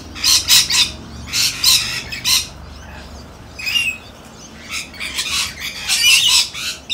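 A flock of rainbow lorikeets screeching while feeding: overlapping squawks in bursts, with a short lull about halfway through.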